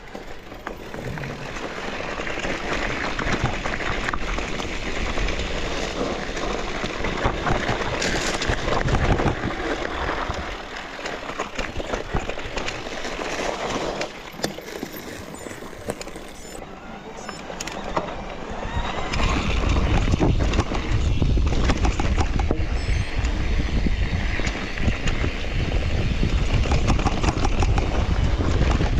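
Mountain bike descending a trail: tyres running over dirt and roots, the bike rattling with many small knocks, and wind rumbling on the microphone, heavier in the last third.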